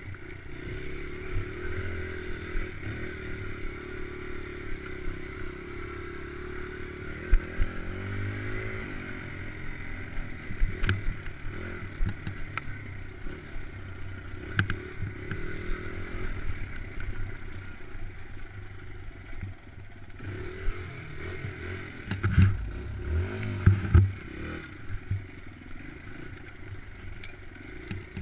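Dirt bike engine running while ridden over a rough trail, its revs rising and falling, with scattered knocks and rattles from the bike over the bumpy ground. The revs climb and drop several times in a row about two thirds of the way through.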